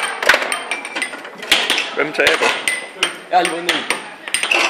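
Table football (foosball) game in play: quick, irregular sharp knocks as the ball is struck by the figures on the rods and cracks against the table's walls.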